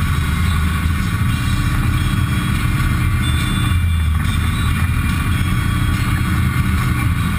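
Textron Wildcat XX side-by-side's engine running steadily at low speed, heard from inside its cab as it crawls along a muddy trail.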